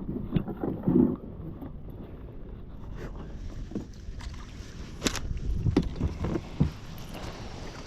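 Wind rumbling on the microphone, with a few knocks and thumps from a plastic folding kayak and its paddle, about a second in and again several times from around the fifth second.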